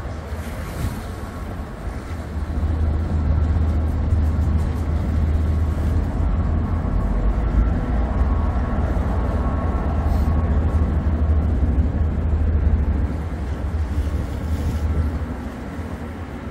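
Low, steady rumble of a passing harbour cruise boat's diesel engines, louder through the middle of the pass.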